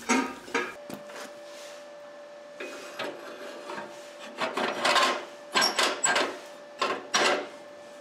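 A steel-tube grate being slid and worked into a sheet-steel wood-stove firebox by hand: several short bouts of metal scraping and rubbing, with a faint steady hum behind.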